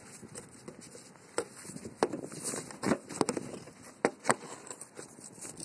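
Irregular clicks, knocks and rustling from handling a cell phone and dry tinder (twigs, cotton, dryer lint) as the phone is moved into position, with a brief hiss of scraping about two and a half seconds in.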